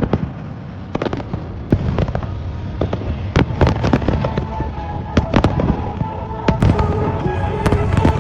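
Fireworks display: a rapid, irregular series of sharp bangs and crackles, with music playing underneath.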